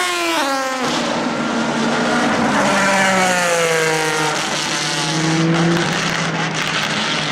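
The loud JPX/Mader V6 engine of a 2004 Pilbeam MP91 LMP2 race car. Its note drops sharply right at the start, then its pitch falls steadily for about five seconds.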